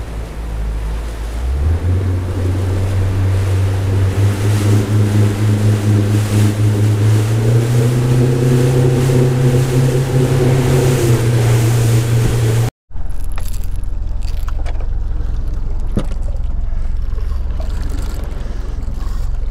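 Small boat's outboard motor running under way, its pitch stepping up twice as the throttle opens, with rushing water and wind. It cuts off abruptly about two-thirds through, giving way to a lower, steady rumble with one sharp knock near the end.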